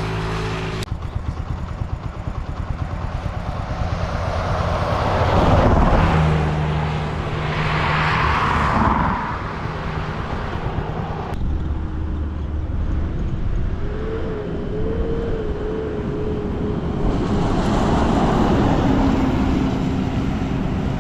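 Buses passing at speed, with engine drone and tyre and wind rush that swell and fade twice over the first half, then a steady engine sound.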